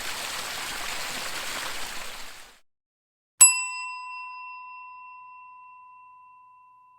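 The steady rush of a waterfall fades out, then after a brief silence a bell is struck once and rings with a clear tone, slowly dying away.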